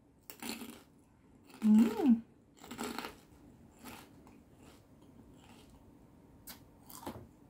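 Close-up chewing of crispy fried pork, crispy fish and pork rinds, heard as a handful of separate crunching bursts. About two seconds in comes the loudest burst, with a short hummed tone that rises and falls in pitch.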